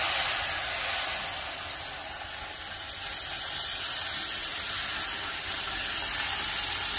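Beef broth poured into a hot stainless skillet of browned beef and flour roux, hissing and sizzling as it hits the hot pan and flashes to steam, deglazing the pan. The hiss eases a little about two seconds in and picks up again as more broth goes in.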